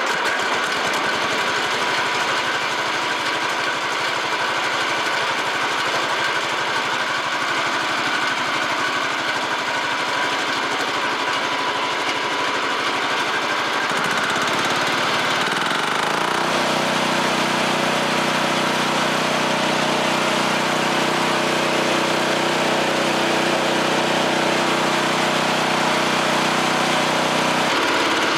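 A 10 hp Chinese single-cylinder diesel engine running steadily with a hard, clattering beat. About halfway through its note changes and a deeper steady hum joins in.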